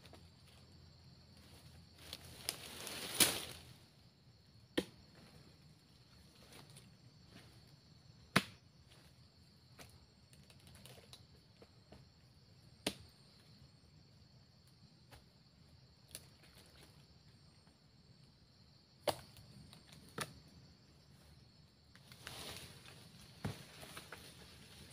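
A sharp knock every few seconds, the loudest about three seconds in, as oil palm fruit bunches and loose fruitlets are handled and tossed onto a pile, over a steady high drone of insects. Rustling through grass and fronds near the end.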